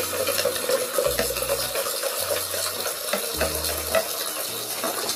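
Water running from a hose into a plastic jar of orange vitamin mix, splashing steadily into the liquid as a poultry drinking-water dose is made up.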